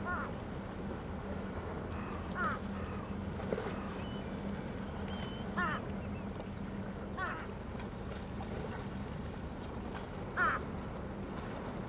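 A bird calling outdoors: about five short, harsh calls a couple of seconds apart, over a steady low hum.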